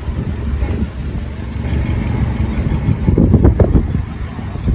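BMW 120i's N43 2-litre four-cylinder petrol engine idling, a steady low rumble through its back-box-deleted exhaust, briefly louder about three seconds in.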